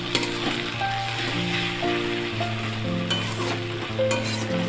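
Chopped onions sizzling as they fry in hot oil in a metal pan, with a few sharp clicks of a spatula against the pan. Background music with sustained notes that change every second or so plays over it.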